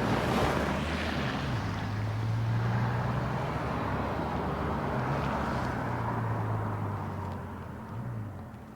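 Vehicle engine running with a steady low hum and road or wind noise, fading away near the end.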